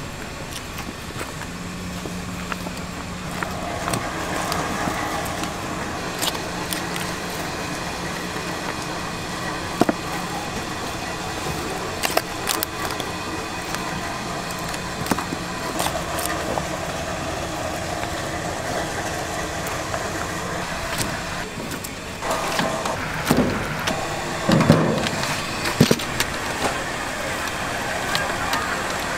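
Steady background noise, with scattered light clicks as a knife cuts up raw whole chickens. Near the end come louder irregular squelches as chicken is worked by hand in a pot of batter.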